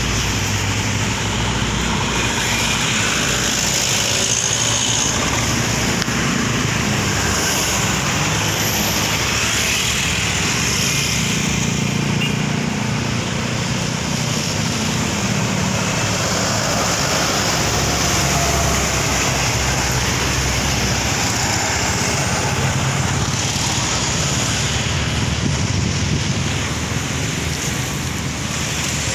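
Motor vehicle running with a steady rush of road noise; its low engine hum shifts in pitch now and then.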